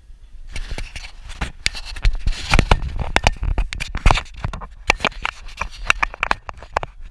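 Handling noise of a GoPro camera being fixed and adjusted in its mount inside a car: a quick, irregular run of clicks, knocks and scrapes.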